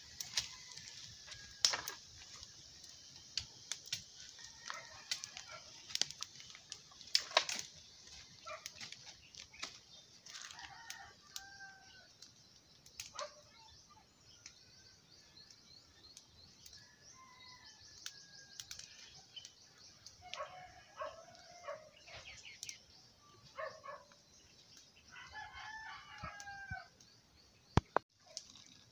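Chickens clucking and a rooster crowing at intervals, with several sharp knocks, the loudest about two seconds in, around seven seconds in and near the end.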